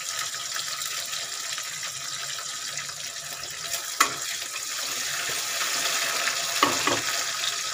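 Chopped tomatoes and onions sizzling steadily in hot mustard oil in a kadai as they are stirred with a spatula. The spatula clicks against the pan about four seconds in and twice near the end.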